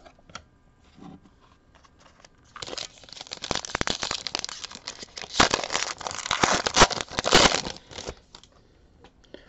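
Foil wrapper of a Diamond Kings baseball card pack being torn open and crinkled: a dense, uneven crackling that starts between two and three seconds in and lasts about five and a half seconds. A few light taps of cards come before it.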